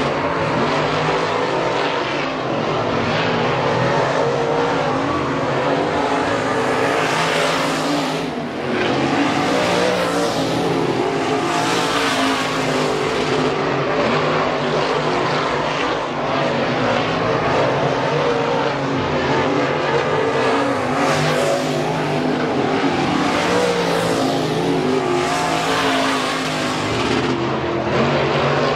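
Several dirt-track race cars' engines running laps around the oval, loud and continuous, swelling and fading every few seconds as cars come past.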